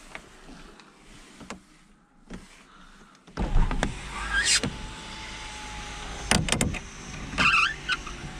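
A few faint clicks, then about three seconds in a BMW E46 320i's straight-six with a loud aftermarket exhaust comes in suddenly and keeps running with a steady low rumble. Several sharp clicks and knocks sound over it.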